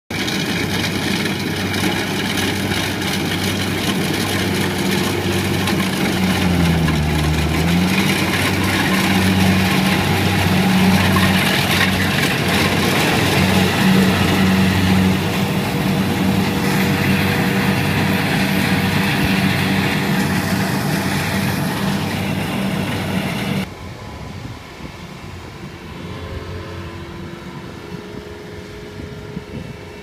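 Rice combine harvester's diesel engine running steadily at working speed; its pitch dips briefly and recovers about a quarter of the way in. Near the end the sound drops suddenly to a quieter, more distant engine.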